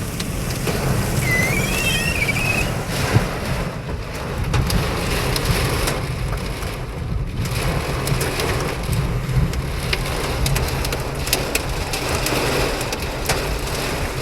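Heavy rain pelting a car, a steady hiss with many sharp drop hits on the roof and windshield over the car's low rumble. A short wavering squeak sounds near the start.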